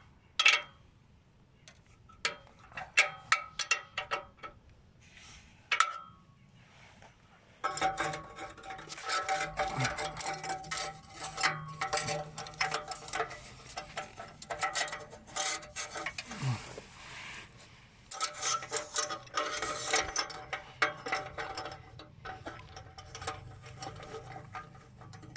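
Hand tools and metal hardware clicking and clinking during work on exhaust clamp fittings: scattered sharp clicks at first, then from about eight seconds in a busier, near-continuous run of clicks and rattles over a steady hum.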